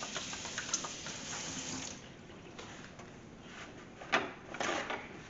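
Kitchen tap running into a sink while hands are washed, shutting off about two seconds in, followed by a few short handling knocks and rustles.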